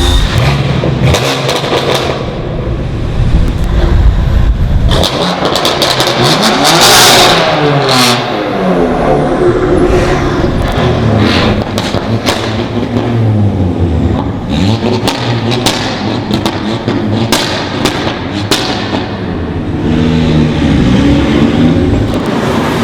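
Modified cars accelerating past one after another, engine notes rising and falling with each rev, with repeated sharp exhaust pops and crackles in between.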